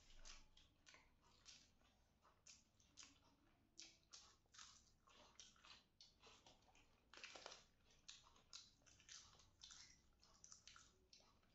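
Faint close-up eating sounds: mouths chewing food, with irregular short clicks several times a second and a longer, louder one about seven seconds in.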